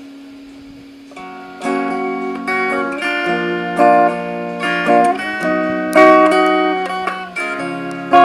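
Guitar music: a melody of plucked notes over a low held note, quiet at first and much louder from about a second and a half in.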